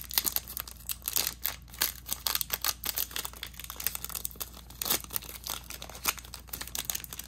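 Foil wrapper of a Pokémon TCG Evolving Skies booster pack crinkling and tearing as it is opened by hand, a dense, irregular run of small crackles.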